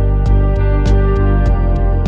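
Background music with a steady beat: sustained synth or guitar notes over a deep bass, with regular sharp percussion hits.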